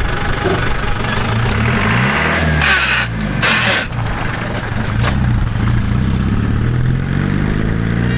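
Land Rover Defender 90's 200Tdi four-cylinder turbodiesel engine pulling away, its note rising, dropping and rising again as it revs through the gears. Two short hissing rushes come about two and a half to four seconds in.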